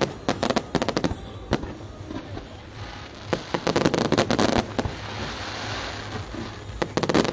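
Fireworks display: aerial shells bursting in rapid strings of sharp bangs and crackles. A dense crackling cluster comes about halfway through and another near the end, with a hiss between them.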